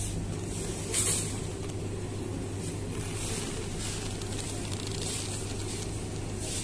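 Supermarket ambience: a steady low machinery hum with a constant rumble underneath. A short hiss comes about a second in, with fainter hisses later.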